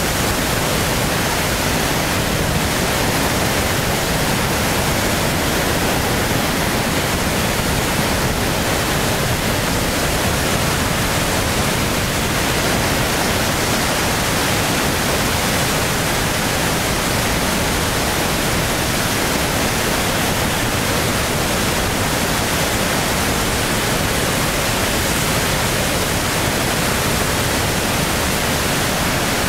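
Swollen floodwater rushing over a river weir and churning in the turbulent water below it: a steady, loud roar of water.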